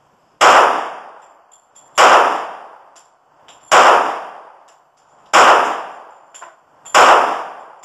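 Taurus 1911 .45 caliber semi-automatic pistol fired five times in slow, steady succession, about one and a half seconds between shots, each report ringing out in a long echoing decay.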